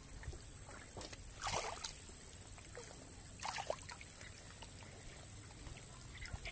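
Water sloshing twice as someone wades through a flooded water spinach patch, two short splashy swishes over a faint steady background.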